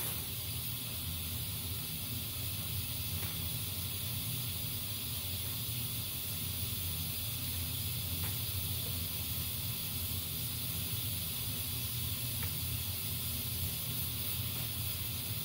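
Steady hissing noise with a low hum beneath it and a few faint clicks.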